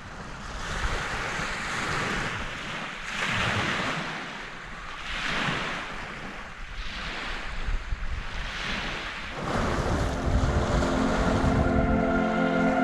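Lake Superior waves washing onto the shore, a swell of surf about every two seconds, with wind rumbling on the microphone. Music comes in near the end.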